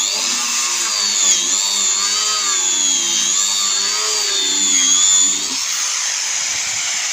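Angle grinder running, its high whine wavering up and down in pitch as the disc is loaded. About five and a half seconds in, the whine drops away and a steady hiss carries on.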